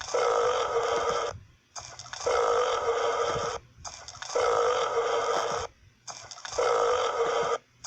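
Four long burps in a row, each lasting over a second, evenly spaced with short pauses between and sounding much alike.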